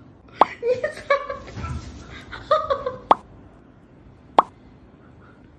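Three short, sharp plops, about half a second, three seconds and four and a half seconds in, with two brief bursts of a voice, like laughter, between the first two.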